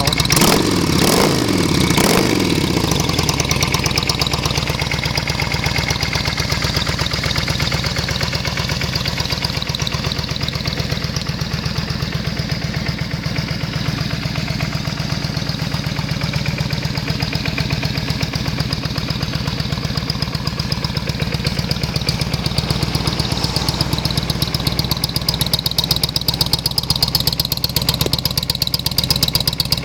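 Yamaha Virago 535's V-twin engine, revved in three quick blips in the first couple of seconds with the pitch falling back after each, then idling with a steady, even pulse and a loud rumble.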